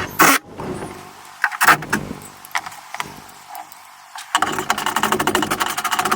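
A car part being bolted back in place: a few sharp knocks and clatters, then from about four seconds in a fast, even run of clicks as a bolt is tightened.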